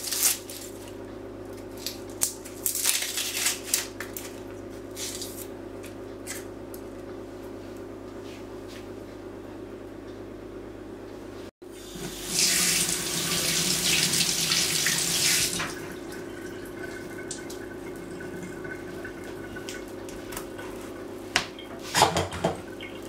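Kitchen tap running as peeled onion halves are rinsed under it. Short splashes in the first few seconds, then a louder, steady run of water for a few seconds past the middle.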